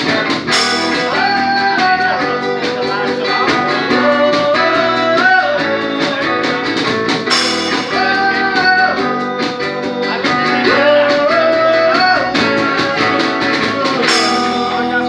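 Live band playing a song: a man singing a long, held melody into a microphone over acoustic guitar, keyboard and drum kit, with a cymbal crash three times, about every seven seconds.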